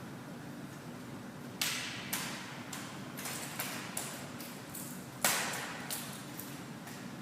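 Drill rifles handled in a rifle drill routine: after a quiet start, a string of about ten sharp slaps and knocks from hands striking the rifles and rifles hitting the floor, irregularly spaced, the loudest a little past five seconds in.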